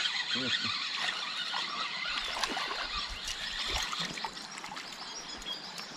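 Water trickling and splashing as a hooked fish is drawn in on a spinning rod, with birds chirping throughout.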